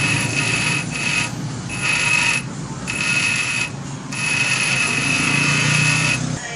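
Small electric bench grinder running while an agate gemstone is ground against its wheel: a steady high-pitched grinding whine over the motor's hum, breaking off briefly several times.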